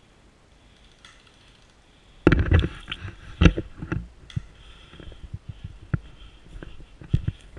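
Close rustling and crunching of a person pushing through spruce branches and grass, with scattered footsteps, starting about two seconds in; the first rustles are the loudest.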